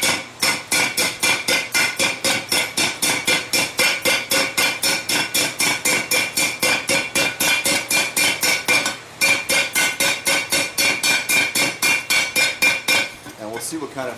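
Rapid, even hand-hammer blows on the hot rim of a forged steel bell held over the anvil horn, about four or five a second, each blow setting the bell ringing. This is the rim being flared out. There is a short break about nine seconds in, and the hammering stops near the end.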